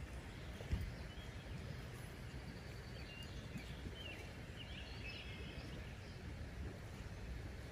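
Outdoor ambience: a steady low wind rumble on the microphone, a single soft knock near the start, and a few faint high bird chirps in the middle.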